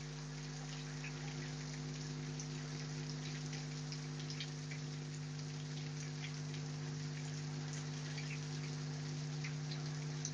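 Heavy rain falling steadily, with many separate drops pattering on surfaces, over a steady low electrical-sounding hum.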